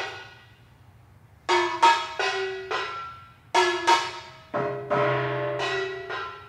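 Handheld ceramic percussion instruments, shaped like cymbals, struck with sticks and ringing with clear pitched tones. After a ringing stroke fades and a second or so of quiet, there is a run of four quick strikes, a short pause, then a second, longer run, each stroke ringing on and fading.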